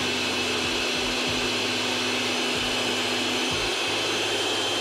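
Countertop glass-jar blender running with a steady motor whine, grinding apple, pumpkin seeds, lemon seeds and papaya seeds in a little water into a smooth drink.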